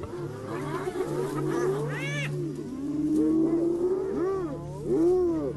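Several spotted hyenas calling at once, with overlapping pitched calls that rise and fall, over a low steady hum.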